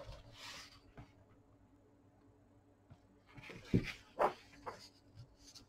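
Pages of a large hardcover book being handled: a soft paper rustle at the start, then a cluster of brief sharp rustles and scrapes a little past the middle.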